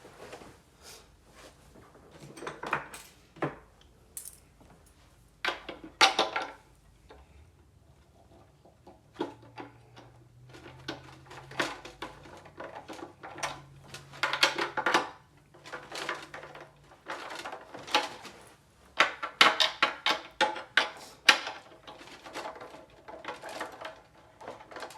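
Irregular metallic clinks and clanks of metal hardware being handled, loudest in clusters about six seconds in and again near twenty seconds.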